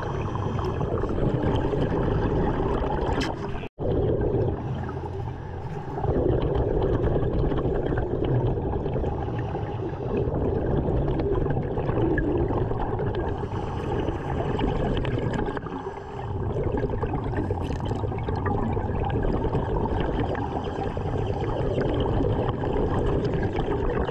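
Muffled underwater noise picked up by a diver's camera: a steady low rush of water with gurgling bubbles. The sound cuts out abruptly for an instant about four seconds in.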